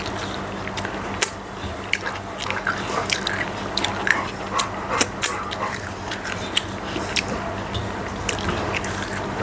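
Close-up mouth sounds of eating: wet smacks and clicks of chewing, scattered irregularly, while fingers wipe the last of the food from an empty brass plate.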